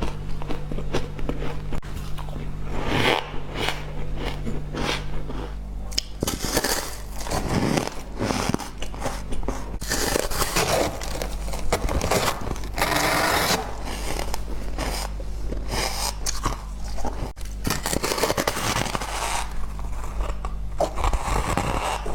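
Close-miked biting and chewing of powdery ice chunks: a continuous run of crisp crunches, one bite after another.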